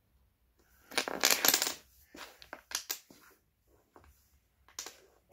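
Dominoes clicking and clattering against one another and a hardwood floor: a quick rattling run about a second in, then a few scattered single clicks as pieces are handled and set down.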